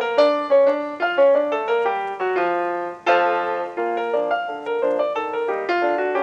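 Solo piano music playing a quick run of notes, with a louder chord struck about three seconds in.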